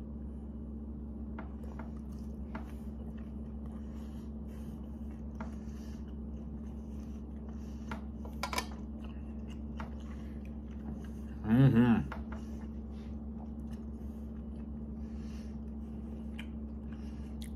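A man quietly chewing meat, with faint clicks of a fork and knife, over a steady low hum in the room. About two-thirds of the way through he makes one short 'mm' sound with his voice.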